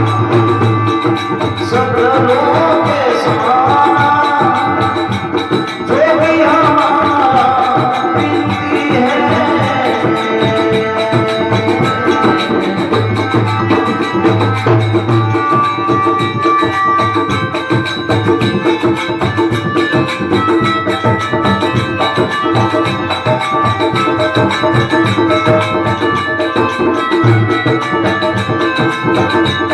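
Rajasthani devotional bhajan music performed live: hand drums keep a steady beat under sustained held tones. A voice sings gliding, ornamented phrases for roughly the first ten seconds, and the music then carries on without the voice.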